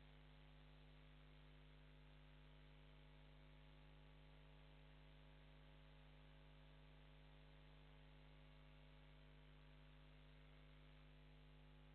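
Near silence: a faint, steady electrical mains hum with a layer of hiss, and no other sound.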